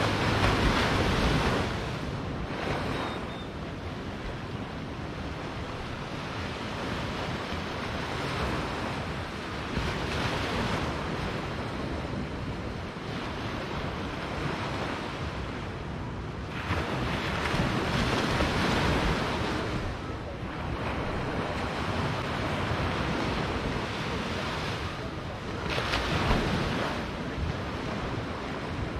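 Small ocean waves breaking and washing up a sandy beach, a steady surf that swells louder a few times as bigger waves come in, with wind rumbling on the microphone.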